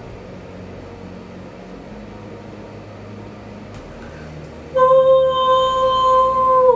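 An edited-in sound effect: one loud, steady held tone starting about five seconds in and lasting about two seconds, dipping slightly in pitch as it cuts off. Before it there is only faint background.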